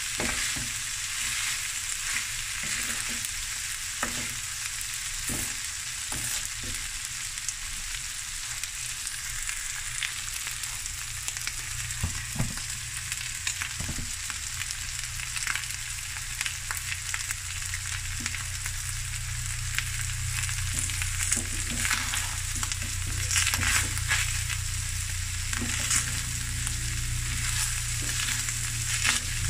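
Boerewors fried rice sizzling in a hot black pan while a wooden spatula tosses and scrapes it, with irregular scraping and knocking strokes throughout over a steady sizzle.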